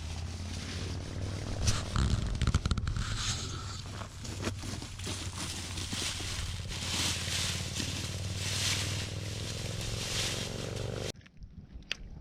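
Crunching and scraping in dry leaves and brush, with a steady low rumble underneath, cut off abruptly near the end.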